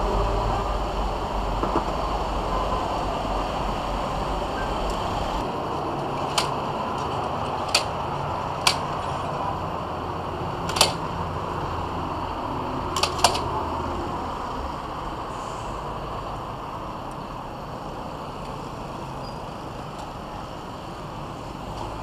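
Aluminium telescopic ladder clicking sharply about six times as its sections are handled, the last two clicks close together, over a steady background hiss.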